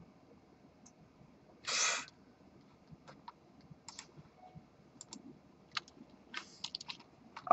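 Faint scattered clicks of a computer mouse and keyboard, with one short hiss of noise about two seconds in.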